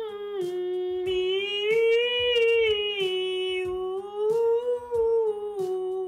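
Woman's alto voice singing a vocal warm-up on 'mm', 'mi' and 'ou' in one breath, the pitch rising and falling in small steps, over a simple instrumental accompaniment. The sung phrase ends near the end.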